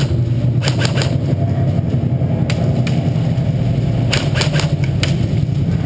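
Airsoft guns firing in short clusters of sharp cracks, a few shots near the start, one about midway and a quick volley near the end, over a steady low rumble.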